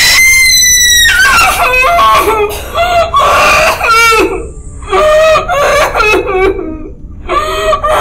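A woman screaming in terror: a shrill scream breaks out abruptly and is held for about a second, then turns into broken, wavering cries and sobs.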